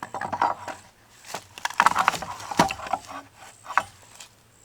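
Wooden deck boards being handled and pulled apart: an irregular run of sharp knocks and cracks, busiest about two seconds in, then stopping.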